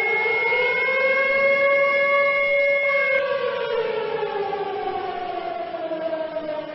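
Civil defence air-raid siren wailing, the attack warning signal. Its pitch rises over the first second or so, holds at the top for about two seconds, then slowly falls. A steady high tone sounds alongside it and stops about three seconds in.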